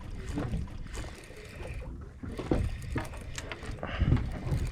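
Uneven low rumble with scattered knocks and clicks on a small fishing boat while fish are being reeled in: wind on the microphone and gear handling against the hull.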